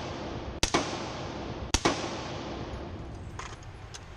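AR-15 rifle with a Huntertown Arms Kestrel 5.56 suppressor firing two shots about a second apart, each crack followed by a sharp echo and a reverberant tail off the indoor range walls. A couple of faint clicks follow near the end.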